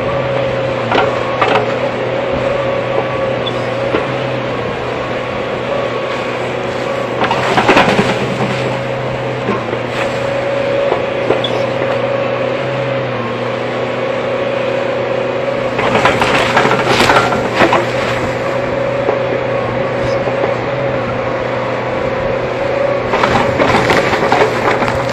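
Hydraulic excavator's engine running steadily with a constant drone. Three bursts of clattering come through it: one about a third of the way in, one past the middle and one near the end.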